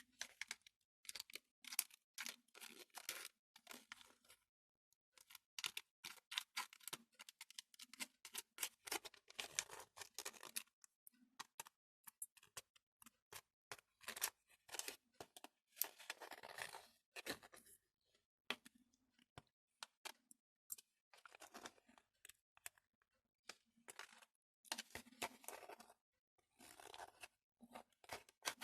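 Faint, irregular scraping and crinkling as gelatin jelly is worked with a knife in a thin plastic candy tray.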